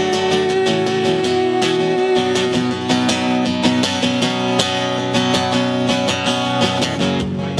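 Acoustic guitar strummed in a steady rhythm of chords during an instrumental passage. A long held note carries on from before and stops about two and a half seconds in.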